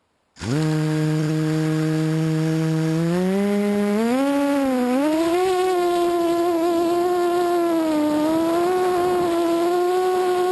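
Quadcopter's Cobra 2208 2000kv brushless motors and propellers spinning up suddenly from silence into a steady whine, then rising in pitch between about three and five seconds in and wavering up and down as the throttle changes.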